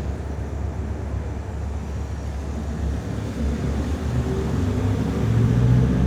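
Low, steady vehicle rumble with an engine note that grows louder about five seconds in.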